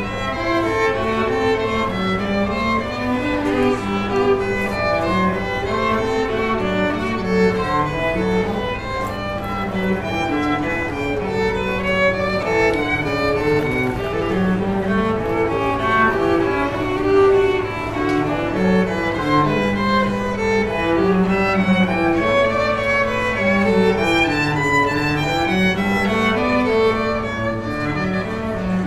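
Classical music played by a string ensemble: violins carrying the melody over cello, in a continuous flowing passage.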